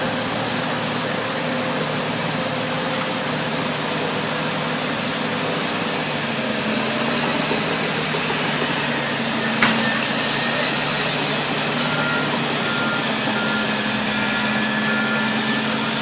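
Diesel engines of heavy earthmoving machines, a Sakai SV525D soil roller and a Mitsubishi Fuso dump truck, running steadily. There is one sharp knock about ten seconds in, and a reversing alarm beeps evenly in the last few seconds.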